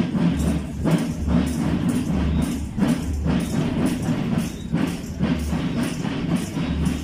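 Parade drums playing a steady, repeating marching rhythm, with a deep pulse under regular strokes.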